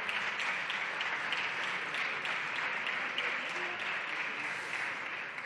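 Applause from a group of parliamentary deputies: a steady patter of many hands clapping that thins a little near the end.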